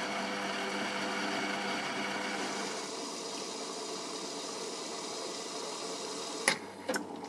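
Automatic coffee machine dispensing frothed milk into a cup: a steady pump whir and hiss with a faint hum that eases about three seconds in, then two sharp clicks near the end.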